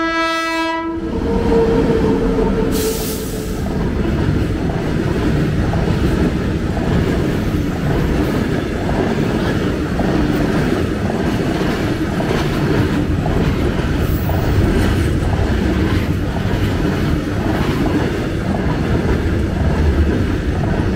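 WAG9 electric locomotive's horn ending about a second in, then a loaded freight train running past with steady wheel clatter and rumble on the rails.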